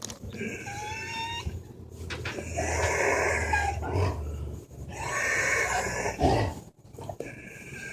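Dog breathing with loud, harsh stridor from laryngeal paralysis: about four long rasping breaths, some with a whistling tone that slides up. This is the sound of respiratory distress, like breathing through a cocktail straw.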